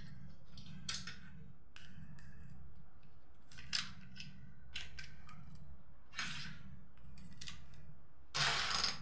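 Small plastic domino tiles clicking as they are pushed one by one into a plastic toy's loading magazine, a sharp click roughly every second, with a louder clatter of loose tiles near the end. A steady low hum runs underneath.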